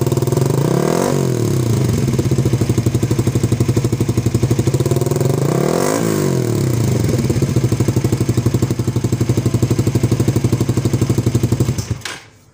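Suzuki GSX-R150's single-cylinder engine running through a NOBI Neo SS aftermarket muffler that is fitted with a restrictive dB killer, the fix for its stutter ('brebet') at around 2000 rpm. The engine idles steadily and is briefly revved twice, about a second in and again about six seconds in, with a mellow ('adem') note. The sound cuts off near the end.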